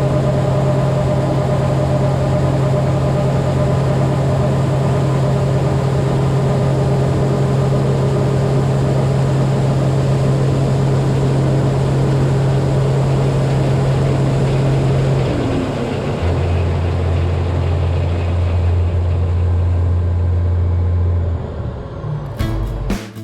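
Heavy farm machinery engine running steadily under load with a strong low hum, which drops to a lower pitch about fifteen seconds in. Music starts right at the end.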